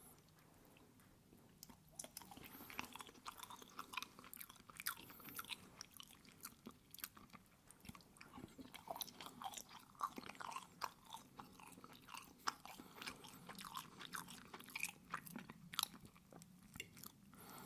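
Close-miked chewing of syrup-soaked pancake, with many small wet clicks of the mouth, starting about two seconds in.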